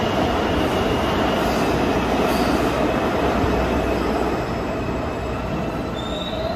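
New York City subway train running through an underground station: a steady loud rumble of wheels on track with a faint high wheel squeal, slowly getting quieter.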